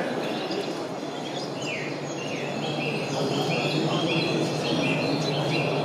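Birdsong over a steady exhibition-hall hubbub: a couple of short falling whistles, then a run of short chirps, about two or three a second, through the second half.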